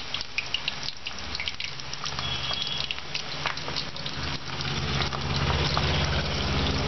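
Fenugreek dumplings (methi muthiya) deep-frying in hot oil in a kadhai: a steady sizzle with frequent sharp crackles. A low hum grows louder from about halfway through.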